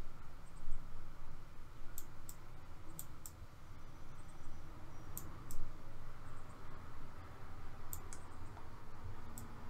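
Computer mouse button clicking in quick pairs, a press and a release about a third of a second apart, several times over a low steady hum.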